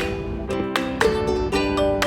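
Background music: a light, plucked-string melody with notes struck in a steady rhythm.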